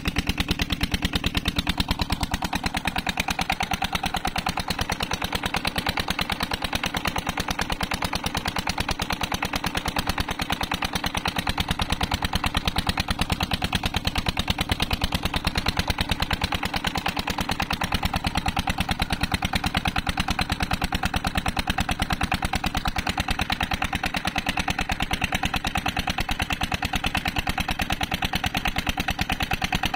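Old black Peter diesel engine running steadily under load with a rapid, even exhaust beat, belt-driving an irrigation water pump.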